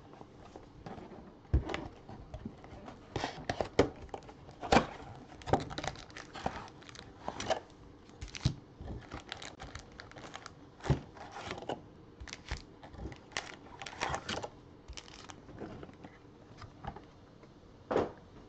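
A cardboard trading-card box being torn open and its foil-wrapped card packs crinkling as they are pulled out and stacked: an irregular run of tearing, crinkling and tapping, with the sharpest snaps about a second and a half, four and five seconds in, and one more near the end.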